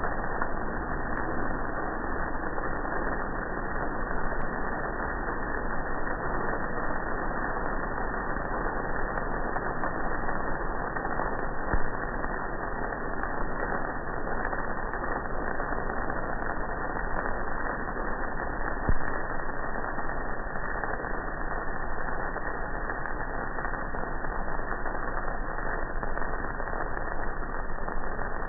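Steady noise of a Probat drum coffee roaster running while a roasted batch of beans pours out of the drum into the cooling tray, with a few faint clicks.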